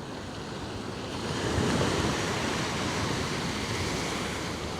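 Sea surf washing on the shore, swelling about a second in and then slowly easing.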